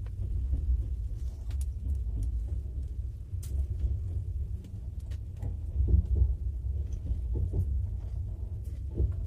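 A passenger train pulling out: low rumble with scattered, irregular clanks and knocks from the wheels and couplings.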